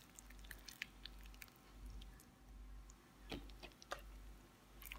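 Faint wet squelching and scattered soft clicks of a hand mixing thick gram-flour (besan) batter with blended lentils and egg in a bowl.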